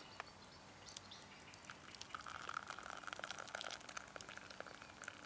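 Hot tea being poured from a small pot into a wooden kuksa cup. The stream starts about two seconds in and runs for a couple of seconds.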